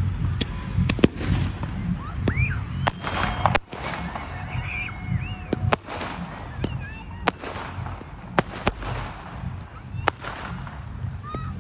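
Aerial fireworks shells bursting: many sharp, irregular bangs and cracks, some close together, over a steady low rumble.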